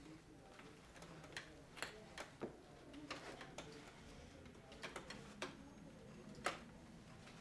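Faint, irregular light clicks and rustles of hands working upholstery fabric around a wooden chair post.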